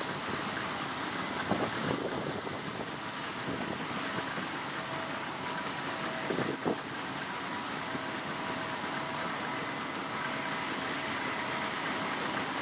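Case combine harvester running steadily while harvesting barley: a constant mechanical drone with a steady whine in it. Two brief louder noises cut in, about two seconds and six and a half seconds in.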